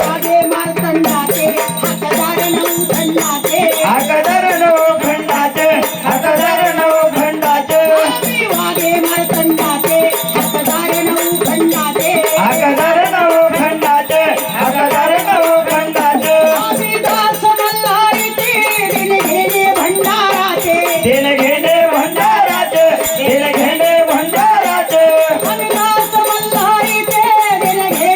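Marathi folk devotional music for Khandoba: a shaken rattle keeps a steady, dense beat while a wavering melody runs over it without a break.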